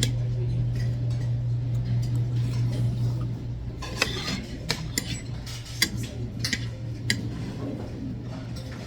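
Eating utensils clinking against dishes during a meal, with about six sharp clinks spread over the second half. A low steady hum underneath weakens a little past three seconds in.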